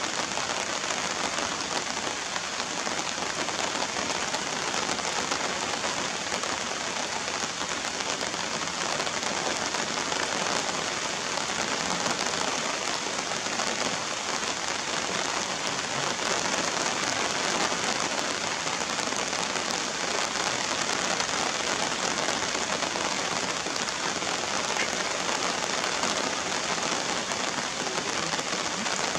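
Steady rain falling on wet ground and puddles: an even, unbroken hiss of many drops.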